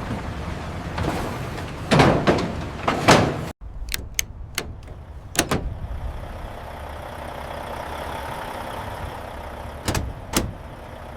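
Steady low machinery hum with several sharp knocks and clatters spread through it, and a brief cut to silence about three and a half seconds in.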